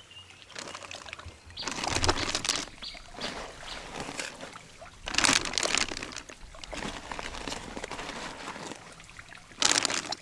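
Live carp splashing and thrashing in water inside a plastic-lined bucket as they are put in and handled by hand, with water sloshing and trickling. Three louder splashes come about two, five and ten seconds in.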